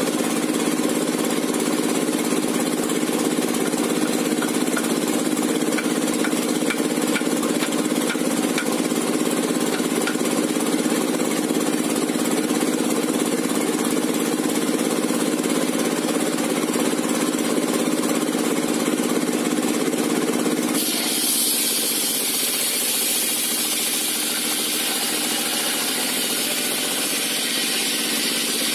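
Diesel engine driving a homemade circular-saw table, running steadily with a dense knocking drone. About two-thirds of the way through the sound shifts abruptly: the low drone drops and a high hiss rises as the circular blade starts cutting into the log.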